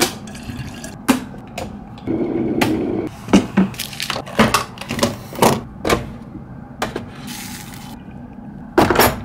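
Handling of a stainless-steel electric kettle and cups: a series of sharp clicks and knocks, and hot water poured from the kettle into a cup.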